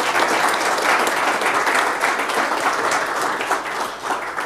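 Audience applauding at the end of a talk, a dense patter of many hands clapping that dies away near the end.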